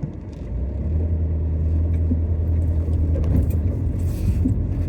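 Skoda Octavia driving, heard from inside the cabin: a steady low engine and road rumble that grows louder about half a second in, with a few faint knocks from the front suspension, which the owner suspects is a worn anti-roll bar drop link.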